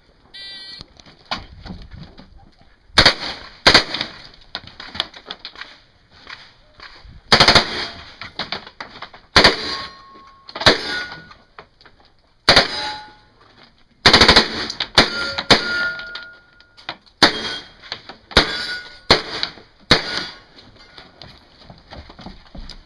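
H&K MP5 submachine gun firing short full-auto bursts, about a dozen strings spread over some twenty seconds with pauses of one to three seconds between them.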